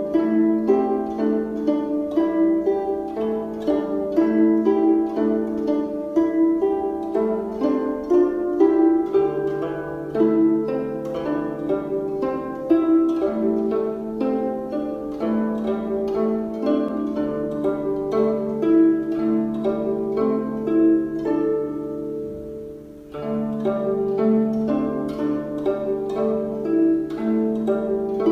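Instrumental music: a quick, steady flow of short plucked-string notes over held low notes, with a brief drop in the upper notes a little past the middle.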